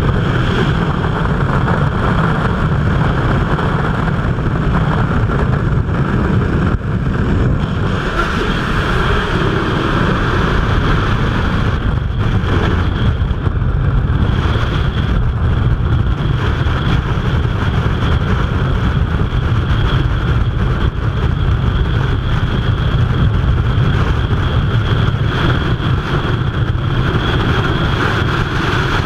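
Loud, steady rush of freefall wind buffeting a camera's microphone during a skydive.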